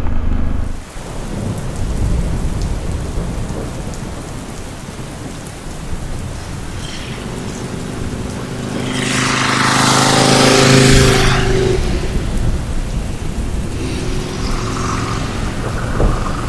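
A motorcycle passes on the rain-soaked road, its engine and the hiss of tyres through standing water swelling to a peak about ten seconds in and then fading, over a steady patter of rain.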